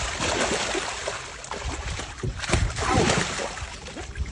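Water sloshing and splashing, with uneven surges.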